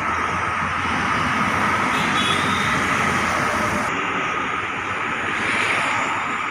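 Steady outdoor street traffic noise: a constant hum of passing road vehicles with no distinct events.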